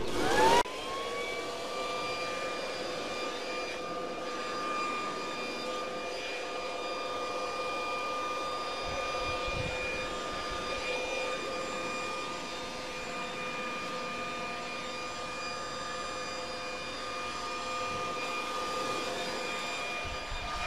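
Handheld electric leaf blower switched on, its whine rising quickly as the motor spins up, then running steadily at an even pitch.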